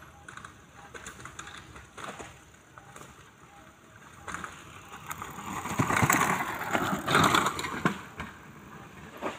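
Mountain bike ridden past along an overgrown dirt trail, its tyres rolling through the undergrowth: faint light clicks at first, then a rough rolling noise that swells from about five seconds in, peaks twice and fades away.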